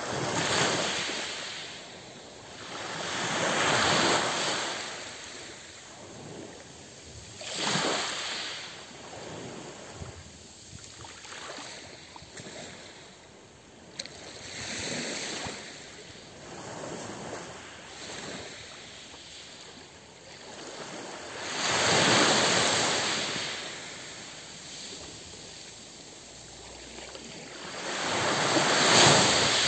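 Small waves breaking and washing up a pebble beach. Each surge rises and fades every few seconds, the loudest near the end.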